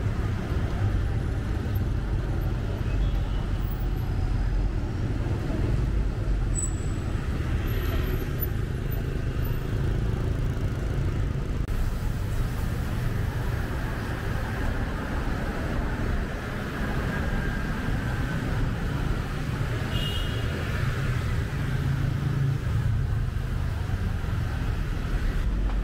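Steady city street traffic: motor vehicles running and passing in a continuous low rumble, with voices of people nearby mixed in.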